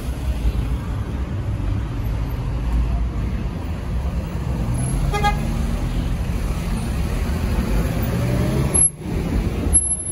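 Busy road traffic passing close by, a steady low rumble of engines and tyres, with one short car-horn toot about five seconds in. The sound cuts out briefly twice near the end.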